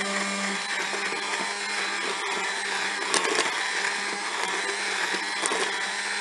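Immersion (stick) blender running steadily in thick, chunky peach and orange jam, a constant motor whir with a low hum. There are two short clicks, about three seconds in and near the end.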